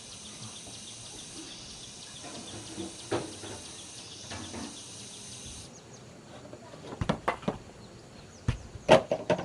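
Steady high-pitched insect drone that cuts off suddenly about halfway through. Then a run of sharp knocks and clicks comes near the end.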